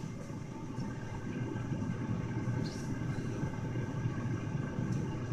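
Steady low mechanical hum of a running motor, with a faint click about two and a half seconds in.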